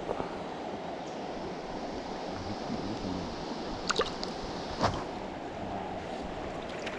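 Steady rush of a trout stream flowing over rocks, with a couple of short sharp clicks about four and five seconds in.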